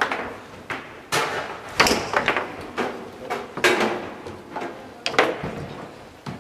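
Garlando foosball table in fast play: the ball cracking off the plastic players and the table walls, and the rods knocking as they are slid and spun. There is a sharp knock every half second to second, the loudest two about 2 and 5 seconds in.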